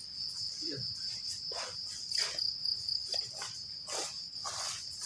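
Crickets chirring in a steady high-pitched drone, with scattered footsteps and rustles of people walking.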